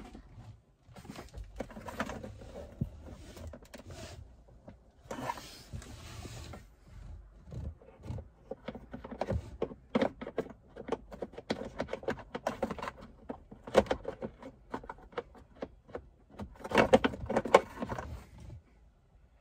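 Handling noise from fitting a new heater blower resistor into a VW Transporter T5's blower housing by hand: scattered plastic clicks, taps and rustling, with a louder cluster of knocks near the end.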